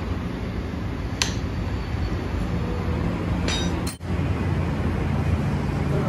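A metal wrench clinking against a motorcycle's front axle fittings: one sharp ringing clink about a second in and a few quicker clinks a little after halfway, over a steady low rumble.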